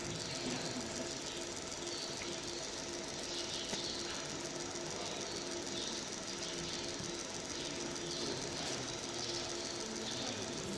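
Fiber laser marking machine running while it colour-marks stainless steel: a steady hiss with a faint, steady hum.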